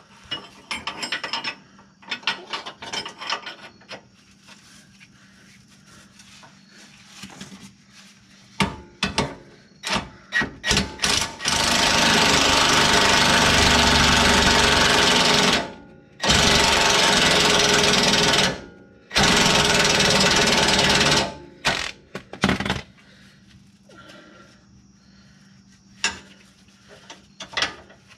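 Cordless 20V impact wrench hammering on a rear suspension bolt in three long runs of a few seconds each, starting about twelve seconds in, with brief pauses between them. Before and after, scattered clicks and clanks of hand tools on the bolt.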